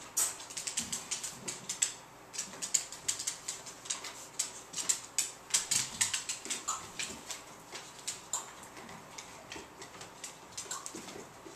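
A beagle's claws clicking on a hardwood floor as it moves about searching: quick, irregular ticks that thin out in the second half, once it stands up with its front paws on a chair.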